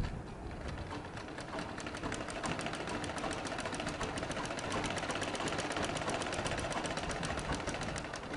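Domestic sewing machine stitching a seam through fabric: a rapid, even clicking of needle and feed at about ten stitches a second. It builds up over the first two seconds, runs steadily, and stops just at the end.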